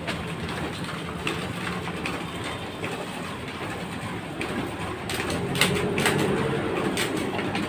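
Photocopy machine running with a steady mechanical rattle and hum as it works. From about five seconds in, several sharp clicks come as sheets are handled and stapled with a desktop stapler.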